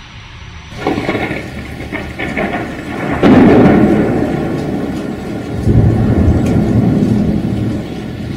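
Thunder in a rainstorm. A sudden loud thunderclap about three seconds in rumbles and fades, then a second deep rumble swells up near the end, over steady rain.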